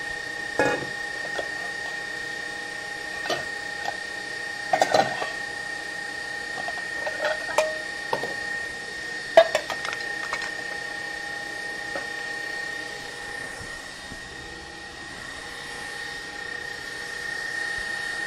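Kitchen utensils and bowls being handled at a work counter: scattered clinks and knocks, a few ringing briefly like metal, clustered around five and seven seconds in and loudest about nine seconds in. A steady faint high-pitched tone runs underneath.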